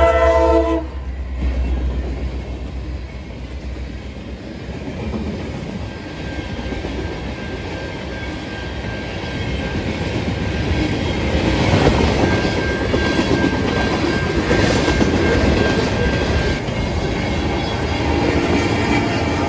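Norfolk Southern SD70ACC freight locomotive's air horn cutting off under a second in, then a loaded freight train of tank cars and covered hoppers rolling past, wheels clicking over rail joints, with a faint steady high whine in the middle. A horn sounds faintly again near the end.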